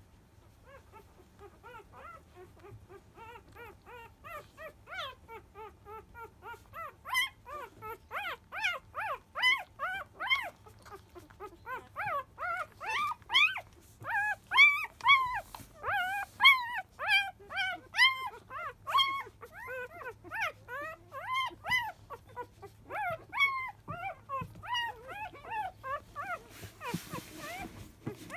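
Five-day-old Labrador Retriever puppies whimpering and squeaking in a rapid string of short, high, arching calls, about two or three a second. The calls are faint at first and grow louder from about seven seconds in. A brief rustle comes near the end.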